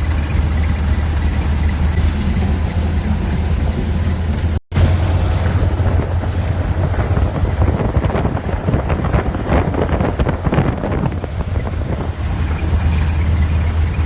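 Steady drone of a propeller aircraft engine heard from on board, cutting out for an instant about four and a half seconds in, with some crackling in the middle stretch.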